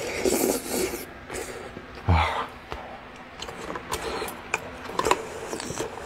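Close-miked eating sounds from a man eating chicken ginseng soup: a slurp from the spoon at the start, then chewing with many small wet mouth clicks and smacks.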